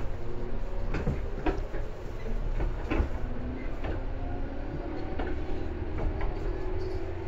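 Tobu 10000 series electric train running, heard inside the passenger car: a steady low rumble with a faint steady hum, crossed by scattered sharp clicks at irregular intervals.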